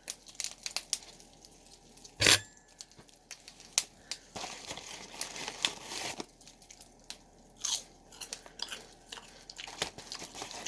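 Crunching and chewing of crisp microwaved pork rinds, with irregular sharp crackles and one loud crunch of a bite about two seconds in.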